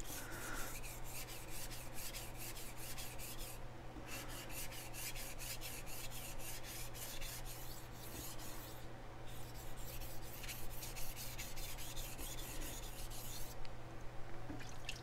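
Steel edge of a chef knife stroked back and forth on a Chosera sharpening stone, grinding the bevel: quick, even scraping strokes, about three or four a second. There are short pauses around four and nine seconds in, and the strokes stop shortly before the end.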